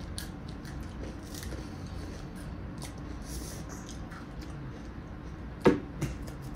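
Ice cream waffle cone being bitten and chewed, with small crackly clicks throughout. A sharp knock comes near the end, followed by a smaller one.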